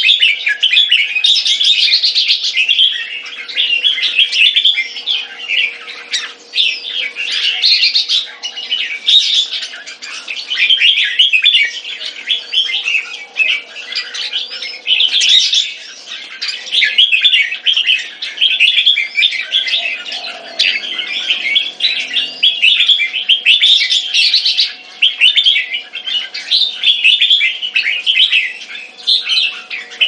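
Several caged red-whiskered bulbuls singing at once, their short, bright phrases overlapping with barely a pause, over a faint steady hum.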